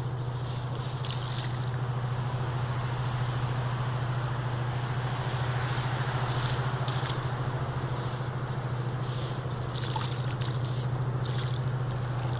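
German shepherd digging in sand with its front paws, the scraping coming in short bursts. Under it runs a steady low motor drone, the loudest sound, like a boat engine running on the water.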